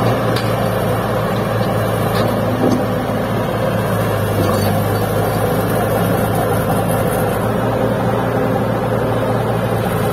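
Caterpillar hydraulic excavator's diesel engine running close by with a steady, heavy low hum, working under load as it puffs black smoke from its stack.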